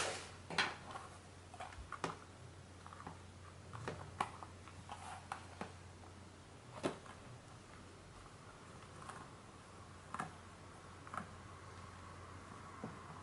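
Scattered light clicks, taps and knocks from handling a boxed mechanical keyboard and its packaging during unboxing, irregular and unhurried, the loudest at the very start, over a faint steady low hum.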